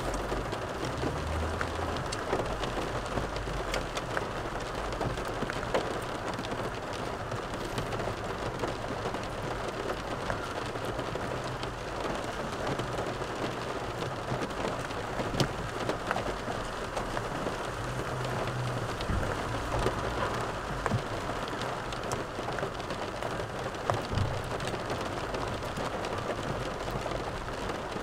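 Steady rain falling on the car, with many small drop ticks over an even hiss.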